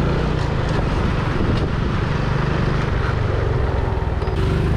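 Motorcycle engine running steadily while riding at low speed.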